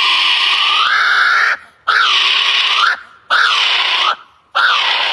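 Kiwi calling: a series of loud, shrill, high-pitched calls. The first, already underway, lasts about a second and a half, then three shorter ones of about a second each follow with brief pauses between them, each rising at the start and falling away at the end.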